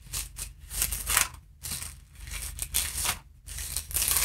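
Pages of a worn, falling-apart Bible being turned and handled, a run of short papery rustles.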